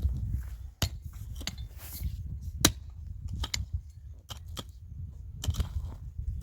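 A series of sharp knocks and clicks at an uneven pace, one louder knock about two and a half seconds in, over a low rumble.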